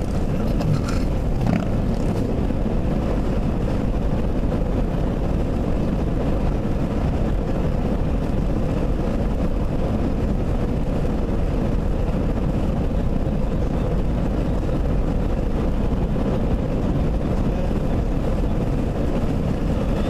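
Steady engine and road noise inside a moving car's cabin, a constant low rumble with no change in pace.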